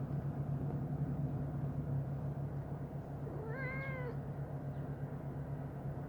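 A stray cat meows once about halfway through, a short call that rises and then falls in pitch, over a steady low hum.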